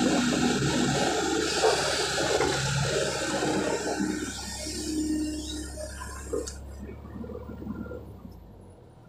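Tracked hydraulic excavator working in mud: engine running hard with a wet, churning noise, dying away from about four seconds in and fading to quiet near the end, with one sharp click along the way. The tracks are being tested after the hydraulic pump was adjusted to cure slow travel, and they no longer run slow.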